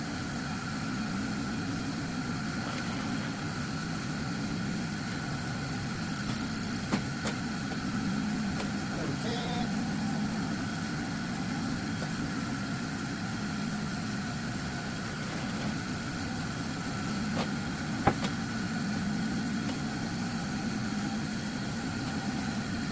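A steady mechanical hum, like a motor running, throughout. There is a short high-pitched squeal about six seconds in and a few sharp knocks later on.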